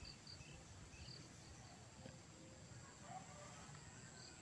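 Near silence: faint insect chirping, a few short high chirps over a faint steady high hum.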